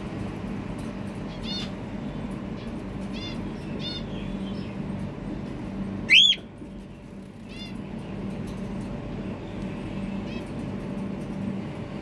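Cockatiels giving short chirping calls every second or two, with one loud screech about six seconds in that rises sharply in pitch and drops again. A steady low hum runs underneath.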